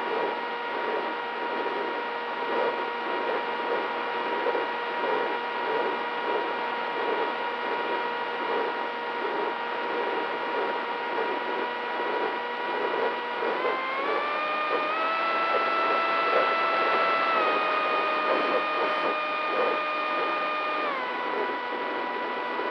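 Brushless electric motor (DYS Fire 2206 2300KV) spinning the propeller of an FPV flying wing, heard from the on-board camera: a steady whine that rises in pitch a little past halfway as the throttle is opened, holds, then drops back near the end.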